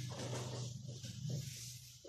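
Whiteboard being wiped clean, the eraser rubbing across the board in uneven strokes, with a low steady hum underneath that drops away near the end.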